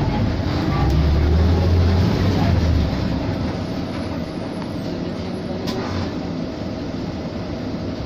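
Cabin noise of a moving air-conditioned city bus: steady engine and road rumble, with a deeper, louder rumble from about one to three seconds in before it settles to a steadier, lower drone.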